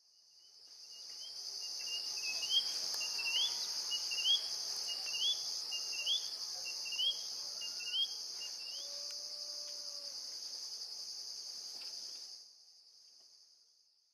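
Evening insect chorus: insects trilling steadily in a high, pulsing band, with a short rising call repeated about once a second over several seconds. It fades in at the start and drops away near the end.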